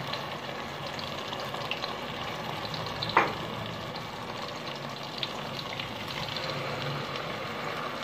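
Ground green masala paste frying in hot oil with browned onions: a steady sizzle with small crackles throughout and one sharper click about three seconds in.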